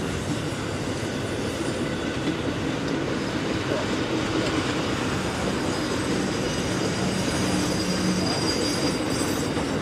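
Amtrak Auto Train's bi-level auto carrier cars rolling past at speed: a steady rumble of steel wheels on the rails, with a faint high wheel squeal that is clearest near the end.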